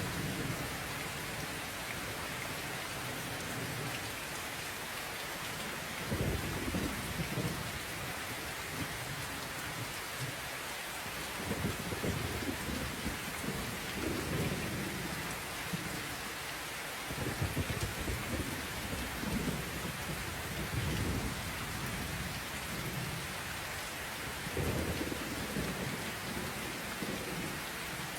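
Steady rain falling, with low rumbles of thunder rolling in and fading away several times.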